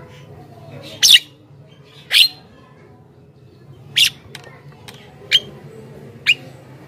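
Javan myna (jalak kebo) giving short, harsh calls, each a quick downward sweep. There are about five loud calls roughly a second apart, with a couple of fainter ones between them.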